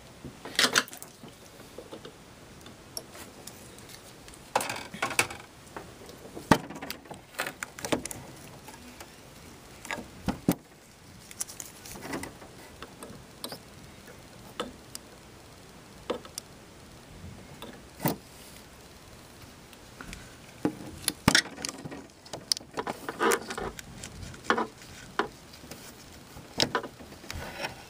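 Irregular small clicks, taps and rustles of gloved fingers and a flathead screwdriver working against the plastic printhead carriage of an inkjet printer, pressing rubber seals into the ink ports.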